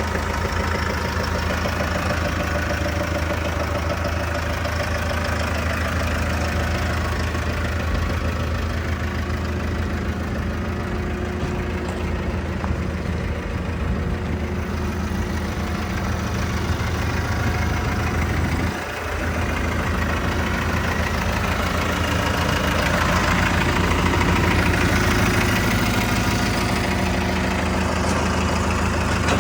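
Diesel engine of a Bandit 15XP towable wood chipper idling steadily, with a brief dip about two-thirds of the way through and running a little louder near the end.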